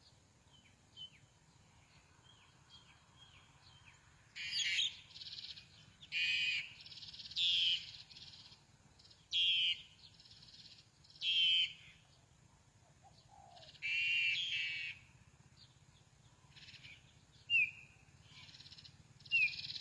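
A bird giving a series of short, harsh, high chattering calls, roughly one every one to two seconds, after a few faint ticking chirps at the start.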